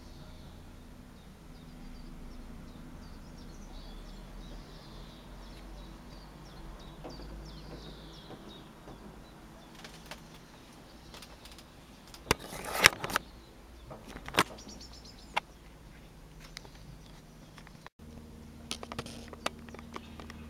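A steady low hum with faint bird chirps. A cluster of sharp knocks and clicks comes about twelve seconds in, and more scattered clicks follow near the end.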